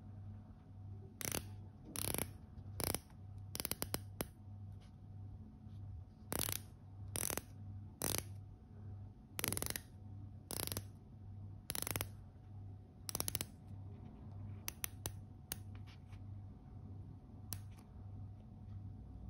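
The counterclockwise-only rotating bezel of a Hugo Boss Admiral chronograph being turned by hand, ratcheting in short bursts of clicks about once a second, with a couple of quicker runs of clicks in between.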